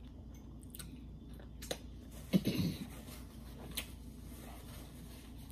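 Quiet eating sounds while chewing rotisserie chicken: a few small clicks and a short low vocal sound from the throat about two and a half seconds in.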